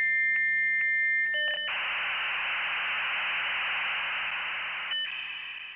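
Dial-up modem handshake: a steady high answer tone broken by regular clicks, a step down in pitch, short paired tones, then a loud steady hiss of data noise that fades out at the end.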